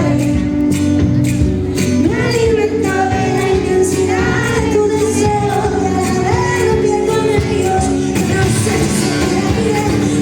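Live band music with a woman singing, sustained instrumental notes and percussion.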